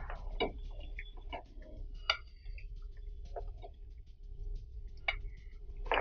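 Scattered light clicks and taps of a spatula against the frying pan and plate as fried battered cauliflower pieces are lifted out of the oil one at a time.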